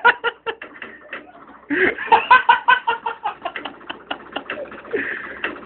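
Loud cackling laughter, a quick run of short 'ha' sounds that pauses briefly about a second in and then picks up again.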